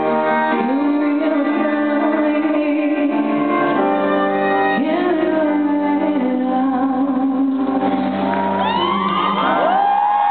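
Female pop singer singing a slow ballad live through a handheld microphone over piano chords, with long held notes and arena reverberation. Near the end the crowd starts cheering and whistling.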